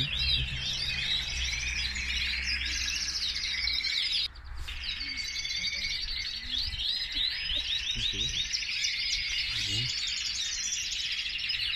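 Many domestic canaries in show cages chirping and trilling over one another in a dense chorus, with a brief drop about four seconds in.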